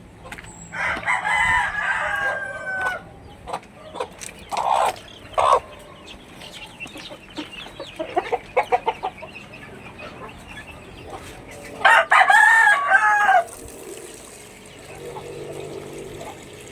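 A rooster crowing twice, once near the start and again about twelve seconds in, each crow lasting about two seconds. Short chicken clucks come in between.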